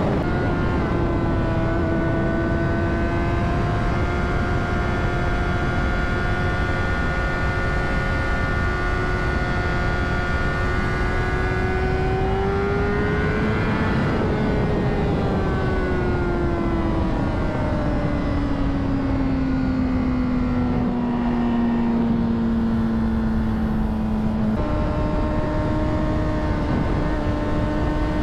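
Honda CBR600RR inline-four sport-bike engine running at speed under wind rush. Its pitch climbs slowly for the first half, then falls steadily as the revs drop, and jumps up sharply near the end.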